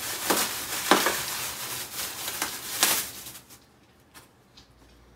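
Clothing and a bag rustling as garments are handled and pulled out, with several sharper swishes for about three seconds, then it falls quiet apart from a few faint taps.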